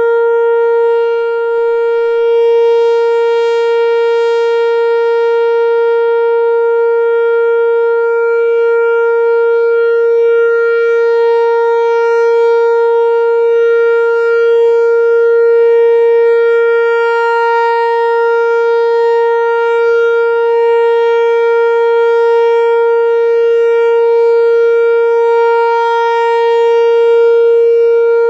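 Whelen WPS-4004 electronic outdoor warning siren sounding a steady tone that holds one pitch without rising or falling, with only slight swells in loudness: the steady alert signal.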